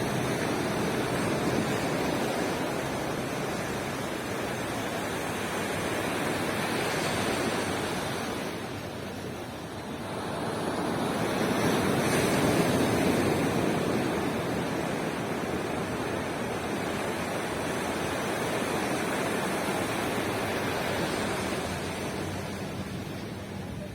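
Ocean surf washing on a beach in a steady rush, easing off for a moment and then swelling into a louder wave about halfway through.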